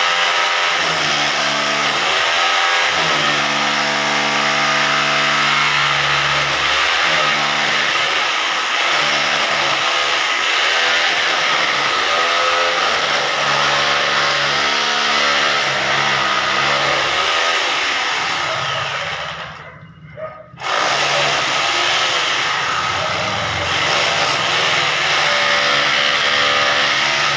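Hammer drill motor running hard while cutting, its pitch sagging and recovering again and again as the load changes. It stops for about a second roughly two-thirds of the way through, then starts up again.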